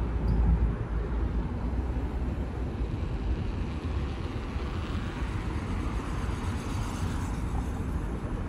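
Wide-body jet airliner landing and rolling out on the runway: a steady low jet rumble heard from a distance, with a hiss that swells for a few seconds near the middle.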